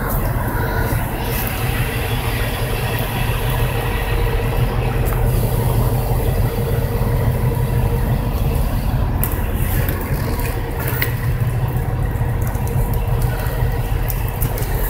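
Heavy vehicle's engine running steadily, a constant low rumble with a faint steady hum, with a few small ticks in the second half.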